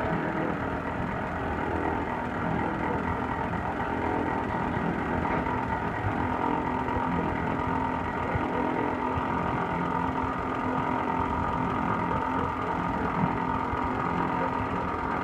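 Pneumatic vacuum conveyor running steadily, its suction pipe drawing soybean meal out of a boat's hold: a constant machine drone with a steady whine and rushing air.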